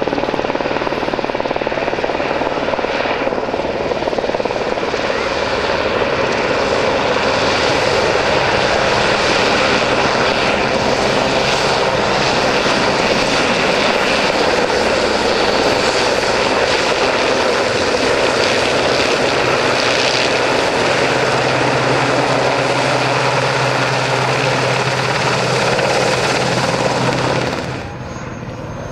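Westland Sea King search-and-rescue helicopter flying low past: loud, steady rotor and turbine noise with a low steady hum. Near the end it drops to the quieter sound of a second helicopter, a Puma.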